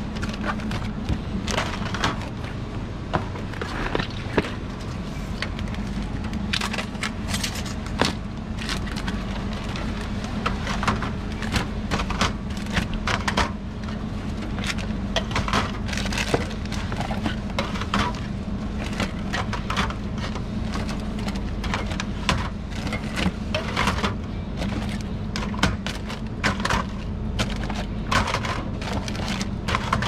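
Bottles of Starbucks iced coffee being handled and set onto cooler shelves: irregular clicks and knocks, several a second at times, over a steady low hum.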